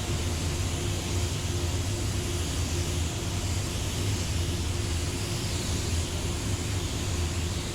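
Steady machine hum with a constant tone and an even hiss of rushing air, unchanging throughout, from shop air equipment running while the car is sprayed with clear coat.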